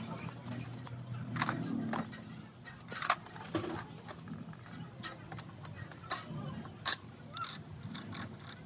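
Steel differential gears and cross shaft clinking and knocking together as they are handled and fitted by hand into the differential case: a scatter of sharp metallic clinks, the loudest near the seven-second mark.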